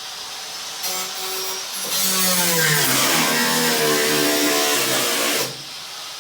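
A power tool cutting the rusty steel floor pan of a 1957 Nash Metropolitan. It starts about a second in and stops near the end, and its motor pitch sags and rises as it bites into the sheet metal.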